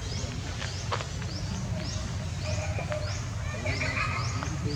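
A short, high rising chirp repeating about every two-thirds of a second over a steady low rumble, with a few faint clicks.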